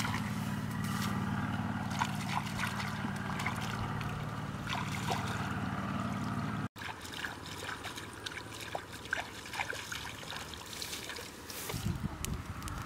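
Shallow water trickling and sloshing as someone wades and reaches into a paddy-field channel, over a low steady hum. After a cut about seven seconds in, scattered small crackles of a wood fire.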